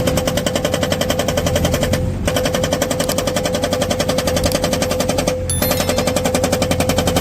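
Hydraulic breaker on a Tata Hitachi Shinrai backhoe loader hammering, about ten blows a second, in three runs with brief pauses about two seconds in and again about five and a half seconds in, over the diesel engine running under load.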